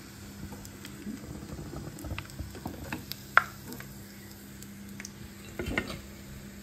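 Crumb-coated paneer nuggets sizzling and crackling in hot oil in a frying pan, with a few sharp clicks as a slotted metal spatula knocks against the pan while the pieces are lifted out.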